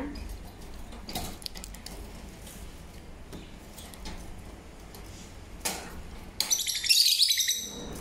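Lovebirds chirping: a burst of shrill, quick chirps near the end, about a second long, excited over fresh millet. A few faint clicks come before it.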